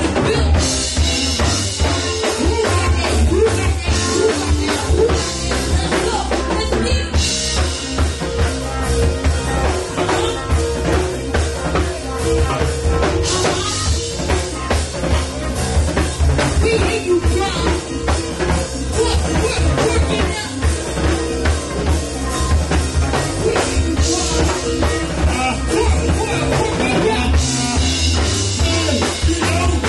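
Live band music: a drum kit keeps a steady beat under bass and electric guitar, with cymbals swelling in several times.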